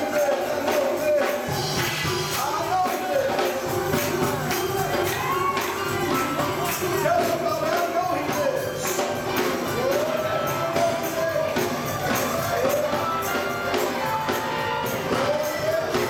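Live gospel praise music with a tambourine jingling along throughout and a melody bending up and down over it.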